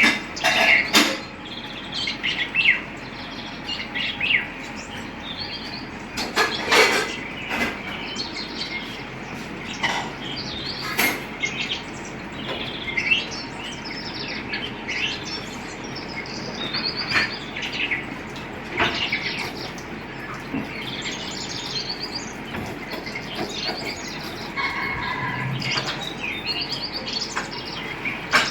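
Birds chirping and calling in many short, irregular notes, with a few short, loud sharp sounds among them.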